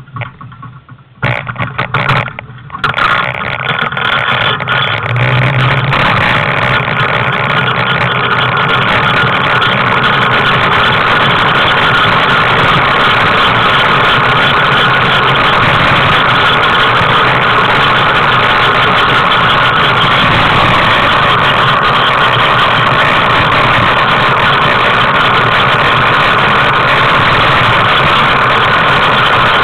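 A tricycle being pulled by a dog rolls along an asphalt street, heard through a camera mounted on its frame: a few knocks as it gets moving, then loud, steady rolling and rattling noise.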